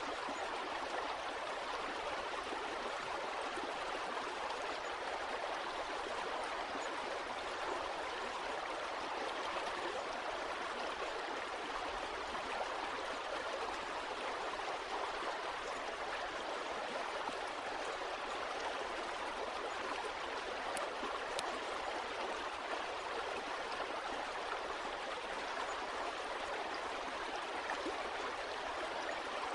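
Water of a stream running and gurgling steadily, an even rush without a break.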